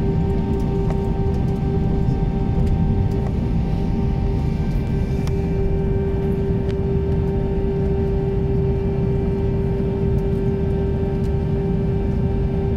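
Airbus A320 cabin noise while taxiing: a steady low rumble with a constant droning hum from the idling jet engines and aircraft systems, unchanging throughout.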